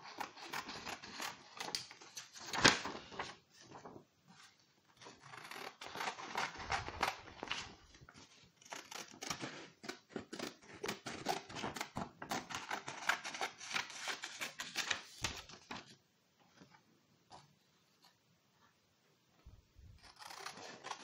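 Scissors snipping through thin printer paper, with the paper rustling as it is turned and handled. The cutting pauses for a few seconds near the end, leaving only a few faint clicks, then starts again.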